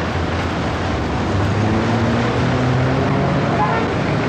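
Steady road traffic noise, with a vehicle's engine droning louder from about a second and a half in.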